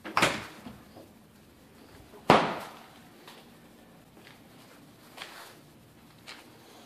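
Two hard bangs about two seconds apart, each with a short ringing decay, the second the louder; the first comes as a refrigerator door swings shut. A few faint knocks follow.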